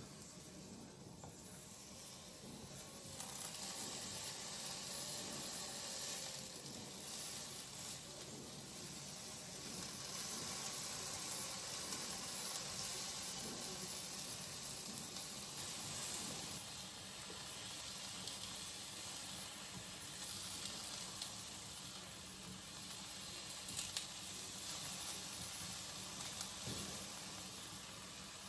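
A steady sizzling hiss that grows a little louder about three seconds in, with a few faint ticks.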